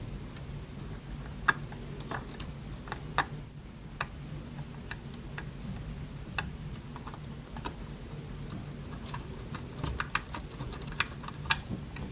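Irregular sharp clicks and ticks of small metal and plastic parts being handled: a screwdriver and small screws worked at a solid-state drive and its plastic mounting tray, with a few louder clicks about one and a half and three seconds in.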